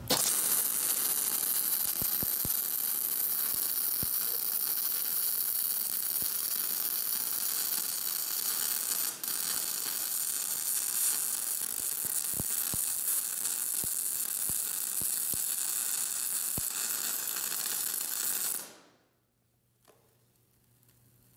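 MIG welding arc running a vertical-down bead on steel plate: a steady crackling hiss with scattered pops, broken briefly about nine seconds in. It cuts off near the end, leaving a faint low hum.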